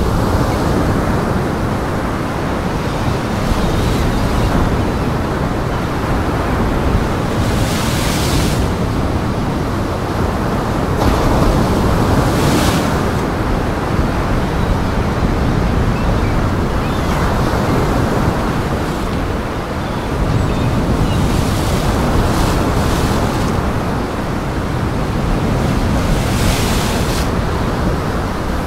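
Surf: waves breaking and washing in with a continuous rush, with some wind. Now and then a wave crashes louder with more hiss, about four times.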